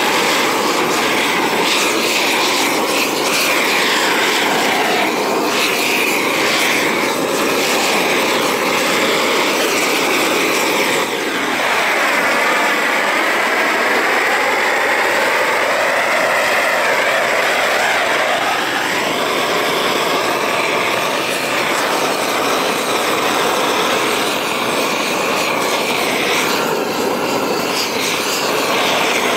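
Gas torch burning steadily as it heats torch-on bitumen membrane. The flame's tone wavers, dipping and rising again about eleven seconds in.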